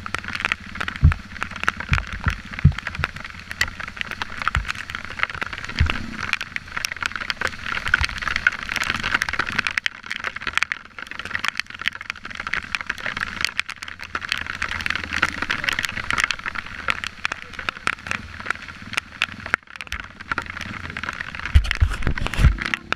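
Trail bike riding over a rough, muddy dirt track: a steady rushing, crackling noise with several heavy knocks from bumps in the first six seconds and a cluster of them near the end.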